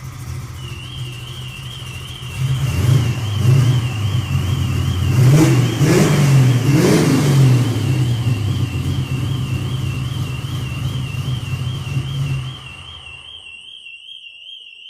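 Camaro Z28's V8 with a Holley carburettor idling, then revved several times, each rev rising and falling, before it shuts off near the end. Throughout, a car alarm warbles steadily: a Mini's alarm set off by the V8's noise and vibration.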